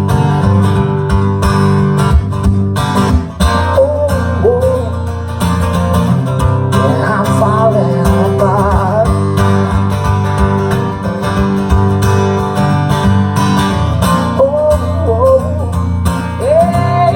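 Band music: a song led by acoustic guitar over a steady bass and beat, with a wavering melody line weaving above it.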